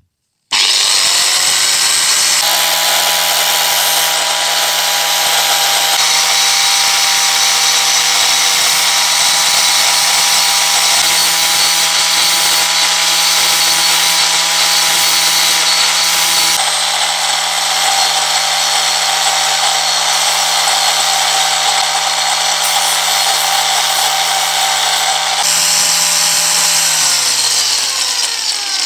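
Electric angle grinder switched on and running at steady speed while the end of a beech-wood handle is sanded against its spinning disc. Near the end it is switched off and the motor winds down with falling pitch.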